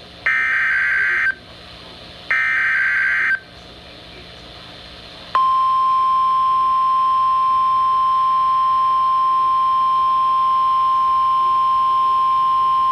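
NOAA Weather Radio alert sequence: two short screeching bursts of SAME digital header data about a second apart, then a steady single 1050 Hz alert tone that starts about five seconds in and holds. Together they herald a new National Weather Service warning.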